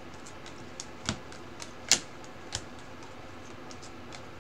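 Stiff Bowman Chrome baseball cards clicking and snapping against each other as a pack is flipped through by hand: a handful of sharp, separate clicks, the loudest about two seconds in.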